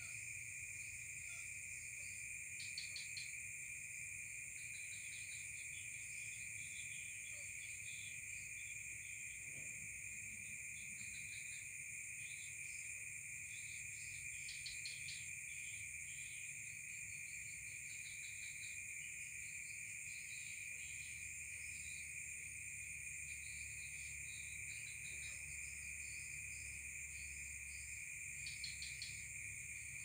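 Chorus of insects such as crickets: several steady, high-pitched trills that never stop, overlaid with scattered shorter chirps from other insects.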